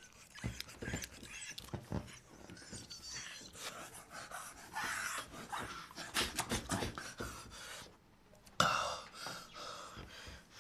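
A man imitating a small animal with his voice and hand at his mouth: squeaky cries, breathy huffs and mouth clicks, with a short break about eight seconds in. Someone takes it for a cat.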